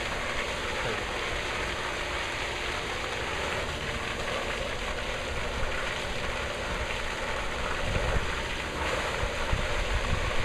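Rain simulator's sweeping spray nozzles showering water at a rainfall intensity of 10 inches per hour: a steady hiss of falling spray.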